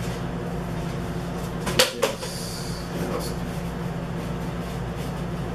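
Cardboard mailing tube and the rolled paper poster inside it being handled: two sharp knocks about two seconds in and a lighter one a second later as the poster is drawn out and unrolled, with a brief faint paper rustle, over a steady low hum.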